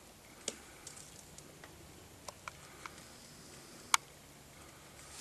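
Scattered faint clicks and ticks over a quiet background, with one sharper snap about four seconds in.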